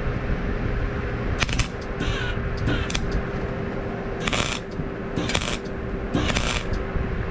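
Electric arc welder laying short tack welds on steel rake tines: a series of brief crackling sizzles, each under a second and about five in all, with the arc struck and broken between them. A small fan hums steadily underneath.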